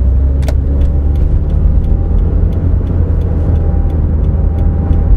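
Cabin sound of a 2011 Toyota RAV4 (2.0-litre petrol, CVT) cruising on a city road: a steady low rumble of road and engine noise. There is a single sharp click about half a second in.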